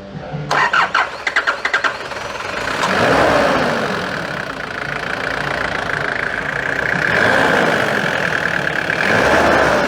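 The 1993 Nissan Terrano's diesel engine is cranked by the starter, catches and runs, and is revved up and back down twice. The hard starting has just been worked on by adjusting the injection pump's fuel delivery.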